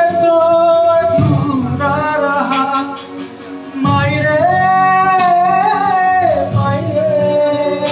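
A song playing: a sung voice holding long, slightly wavering notes over instrumental backing, with a short lull about three seconds in.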